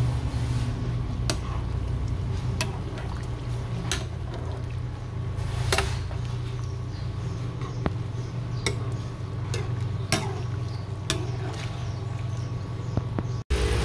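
A metal ladle stirring cooked elbow macaroni in a pot of water, clinking sharply against the pot about once a second amid wet sloshing, over a steady low hum.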